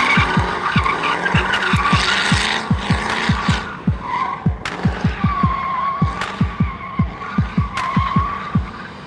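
Drift cars' tires squealing, dense for the first few seconds and then in wavering squeals that come and go, under electronic dance music with a steady kick-drum beat.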